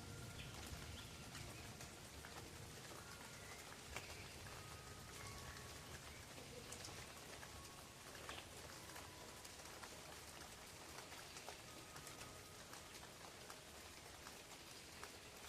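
Faint rain falling on forest leaves: a soft, even patter with scattered single drop ticks, and a few brief faint high whistles.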